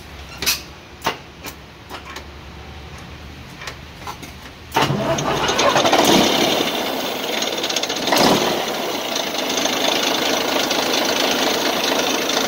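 Volvo TD122F 12-litre straight-six turbodiesel being cranked by its starter, with a sharp knock about every half second, then catching about five seconds in. It runs loudly at once, its revs surging twice before it settles into a steady run.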